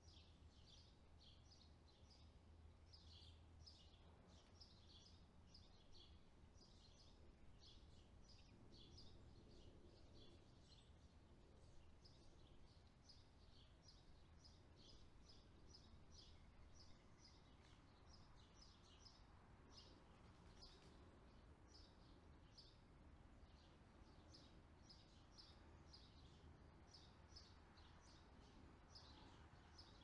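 Faint birdsong: many short, high chirps repeating several times a second without a break, over a low hum.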